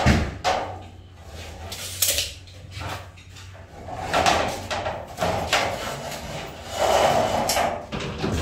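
Irregular knocks, clatters and scrapes from handling a tape measure and a strip of cement sheet over a steel bath frame, with a low steady hum beneath.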